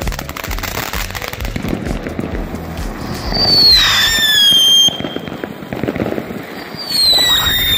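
Toy-car novelty fireworks (Chariot of Fire) spraying sparks with a steady hiss and crackle. Two loud whistles follow, about three seconds apart, each sliding down a little in pitch for about a second and a half and cutting off sharply.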